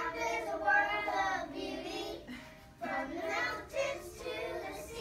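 A class of young children singing a song together, in phrases of a second or two with short breaths between.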